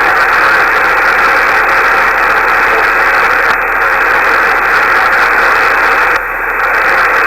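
Steady hiss of static from a shortwave ham radio receiver on an open channel while no station transmits, with a brief dip about six seconds in.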